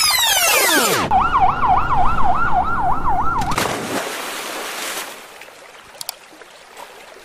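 A siren wails rapidly up and down, about three cycles a second, for roughly two and a half seconds after a second of sweeping pitch glides; then a splash as a small toy vehicle hits the water, followed by faint water sounds.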